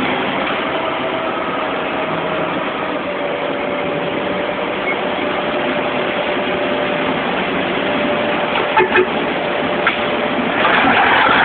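Komatsu HD785-5 haul truck's V12 diesel engine running steadily, heard inside the cab. A couple of brief knocks come about nine seconds in, and the engine grows louder near the end.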